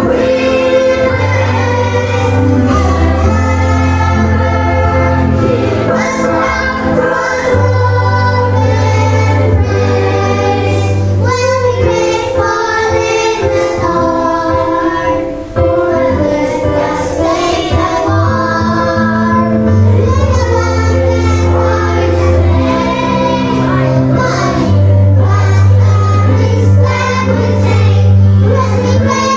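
A group of children singing a Christian hymn together over an instrumental accompaniment with held bass notes.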